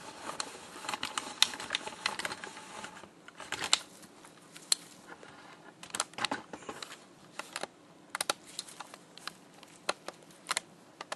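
Irregular light clicks and taps from a torque wrench and its digital torque tester being handled and set up. The clicks come thick in the first few seconds, then scattered.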